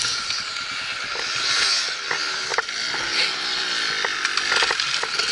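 Dirt bike engine running, revving up and down a few times while the bike is bogged down in deep snow, with a few sharp knocks.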